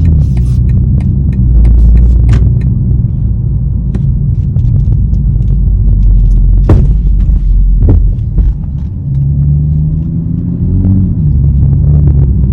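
A 2021 BMW M440i's engine running with a steady low drone whose pitch rises and shifts about three-quarters of the way through. Light clicks come through the drone, with two sharper knocks about a second apart near the middle: the knocking noise the owner is recording.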